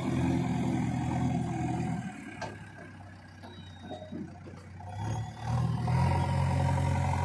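Heavy diesel engine running at a steady raised speed. It drops away for about three seconds in the middle, when a few knocks and clatter are heard, then comes back up.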